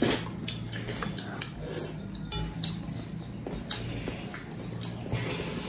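Close-up wet eating sounds: chewing and handling meat, gravy and rice, a string of small clicks and smacks over a low steady hum.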